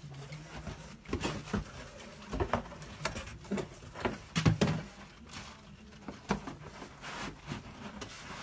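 Cardboard packaging being handled: scattered rustles, scrapes and knocks as a boxed speaker is lifted out and turned over, with the busiest cluster a little past the middle.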